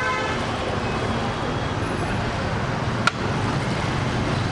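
Steady background din of a restaurant, low and even, with one short metallic clink about three seconds in: a serving spoon against a plate.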